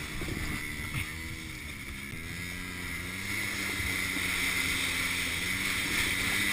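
Quad bike engine running steadily at a distance; its pitch wavers for the first couple of seconds and then holds. Under it is a steady hiss of a plastic kayak hull sliding over snow, which grows a little louder toward the end.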